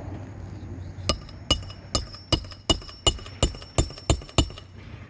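Hammer striking steel to drive a roofing nail under a shingle: about ten sharp, ringing metallic strikes, roughly three a second, starting about a second in.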